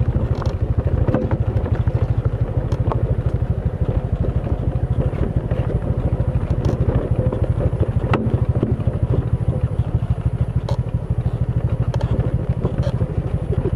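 Motorcycle engine running steadily while riding, with a fast, even pulsing, and a few scattered sharp clicks and knocks over it.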